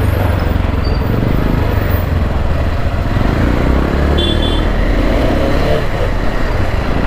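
Motorcycle engine running at low speed in town traffic, heard from the rider's seat as a steady low rumble with road and wind noise. A brief high beep sounds about four seconds in.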